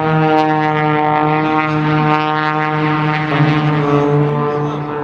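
Propeller-driven aerobatic airplane's engine droning steadily overhead, its pitch shifting slightly a little past three seconds.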